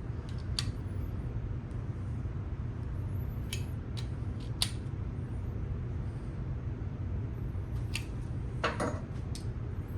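A few sharp, light metallic clicks and clinks of parts and tools being handled during assembly work, over a steady low hum.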